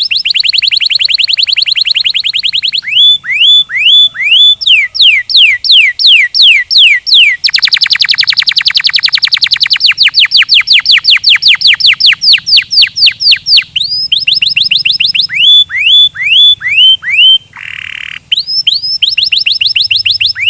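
Domestic canary singing a long song made of rolls: runs of the same whistled note repeated, some as fast trills, others as slower sweeping notes about three a second. A short harsh buzzy note comes near the end.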